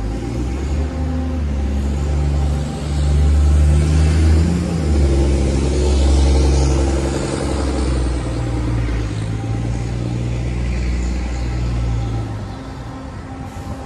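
Motor vehicle engine running close by, its pitch holding and then stepping to a new level every second or two. It grows loudest in the middle few seconds and eases off near the end.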